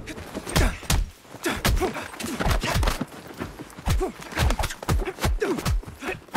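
Hand-to-hand fight sound effects: a quick, irregular run of sharp punches, blocks and blows, about three a second, many of them with a short whoosh that drops in pitch.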